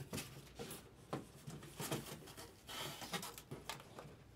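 Handling noise: scattered soft clicks, taps and rustles of things being moved and handled on a table.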